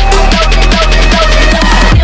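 Electronic dance music with a fast beat and deep kick drums that drop in pitch, plus synth tones.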